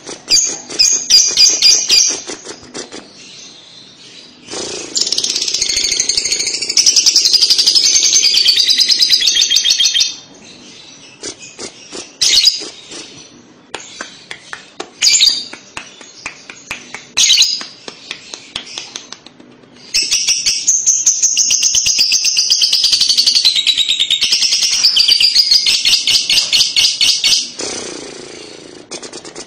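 Fischer's lovebird chattering: two long, fast, unbroken 'ngekek' bouts of high shrill chirps, each lasting several seconds, with short bursts of chirps in between. This is the long chatter used to provoke other lovebirds into answering.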